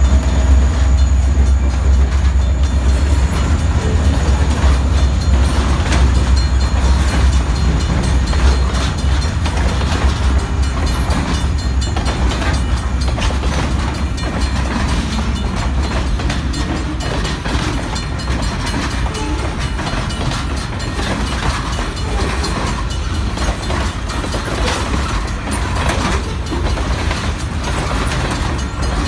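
Freight train passing close by: an EMD SD40-2 diesel locomotive goes by with a deep engine rumble at the start, followed by freight cars rolling past, their wheels clicking irregularly over the track.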